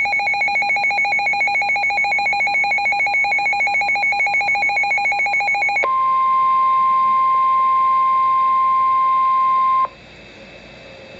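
Weather radio alert: a loud, rapidly pulsing electronic beep, then about six seconds in a switch to a steady single-pitch tone (the NOAA Weather Radio 1050 Hz warning alarm tone) that cuts off suddenly, leaving faint hiss.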